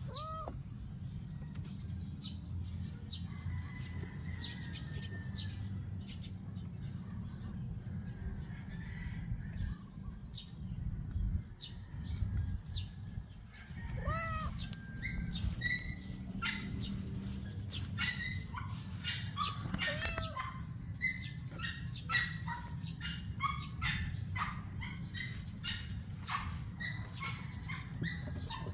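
Birds chirping over a steady low hum, the chirps growing busier in the second half. A few short rising-and-falling cries stand out at the very start and about halfway through.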